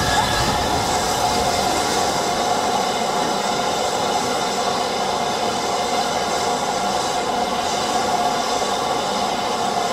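BR Standard Class 5MT 4-6-0 steam locomotive standing still and letting off a steady, continuous hiss of steam, with no exhaust beats.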